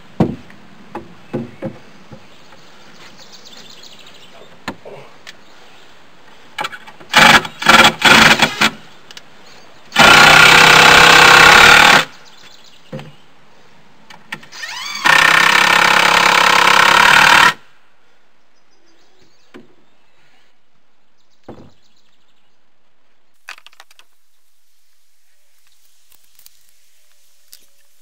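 Power drill driving screws into wooden framing: a few short trigger bursts, then two steady runs of about two seconds each. Light knocks of lumber being handled come first.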